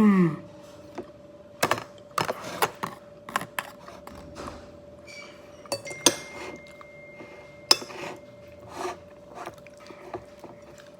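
Cutlery clinking and tapping against a plate in scattered, irregular clicks while eating.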